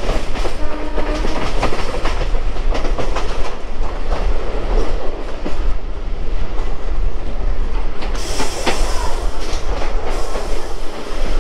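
Electric suburban local train (EMU) running at speed, with a steady rumble of wheels on rail and irregular clickety-clack as the wheels cross rail joints and points, heard from beside the coach's outer wall.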